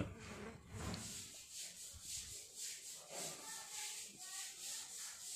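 A razor blade scraped back and forth over the skin of a palm, a rubbing scrape repeated about twice a second.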